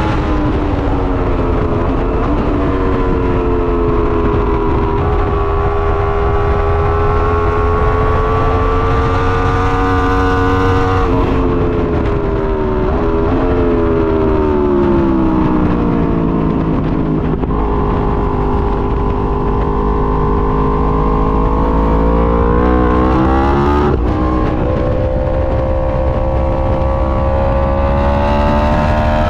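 A vehicle engine running under way, its pitch slowly rising and falling with speed, with two sudden drops in pitch about eleven and twenty-four seconds in, over a steady low rumble.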